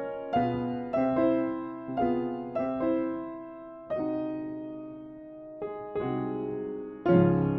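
Upright piano played solo in a slow classical passage: chords and notes struck about once a second, each left to ring and fade, with one chord held ringing for over a second in the middle and a louder chord struck about seven seconds in.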